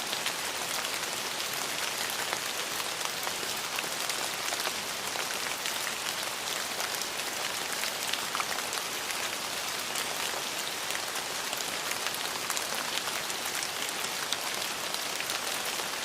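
Steady rain falling, an even hiss dense with the small ticks of individual drops striking surfaces.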